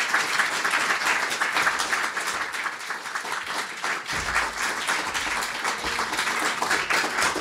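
Audience applauding, a dense run of many hands clapping that slowly thins. A low rumble joins about four seconds in.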